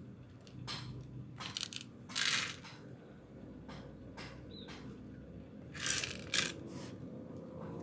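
Handling noises from a spring-powered airsoft M1A rifle: a run of irregular clicks and scraping rattles of its plastic and metal parts. The longest, loudest rasps come about two seconds in and again about six seconds in.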